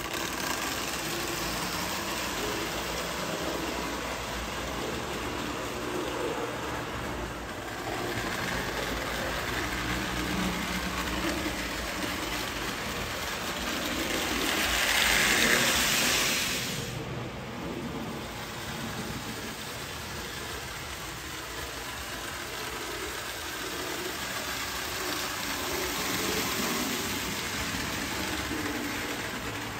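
Marx Army Supply Train tin toy locomotive and cars running on tinplate track: a steady whirring clatter of motor and wheels on the rails, growing louder about halfway through as the train passes close by, then easing off.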